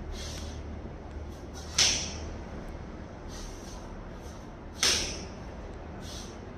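Taekwondo uniform (dobok) snapping with fast strikes during a poomsae form: two sharp snaps about three seconds apart, with fainter swishes of cloth between, over a steady low hum.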